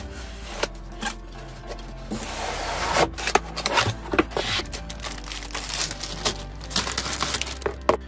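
A cardboard laptop box is slit open along its taped seam with a box cutter, then opened and its foam packing handled. The sound is scraping and rubbing with scattered clicks, which grow busier from about two seconds in.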